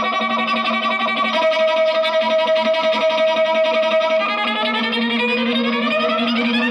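Horror sound effect made from processed string instruments: several held tones sounding together, the upper ones sliding upward in pitch over the last two seconds.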